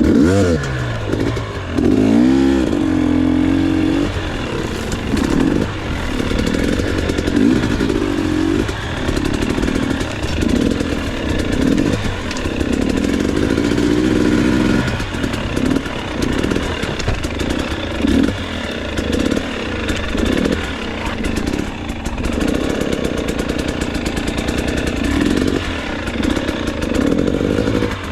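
Off-road motorcycle engine revving up and down in short surges and dropping back, over and over, as it is ridden down a steep rocky slope.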